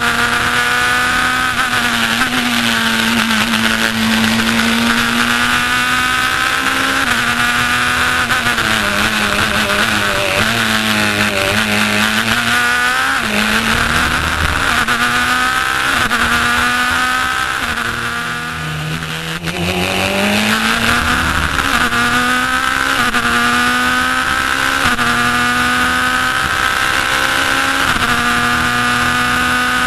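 Race car engine heard from the open cockpit at full throttle, its note climbing in pitch and stepping down at each upshift. About 18 seconds in it falls away to a low note, then builds up again through the gears.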